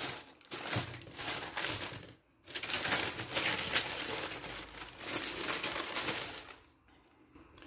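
Thin paper crinkling and rustling as hands unwrap and handle it, in irregular bursts with a short break about two seconds in, dying away near the end.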